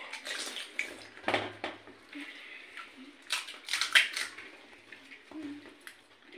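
Crisp gupchup (pani puri) shells cracking as fingers break them open, and crunching as they are eaten, with light clinks against steel plates. The loudest crunches come about a second in and about four seconds in.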